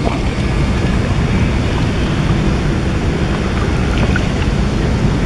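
Steady low rumble of a small boat moving across flooded reedy water, with wind buffeting the microphone.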